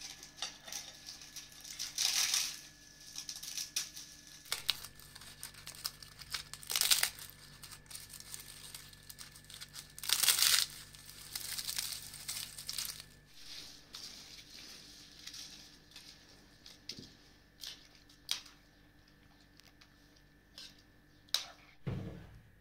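Dry, brittle flatbread being broken and crumbled by hand into a bowl of yogurt soup: crackling and crunching in bursts, loudest about two, seven and ten seconds in, then thinning to scattered small crackles.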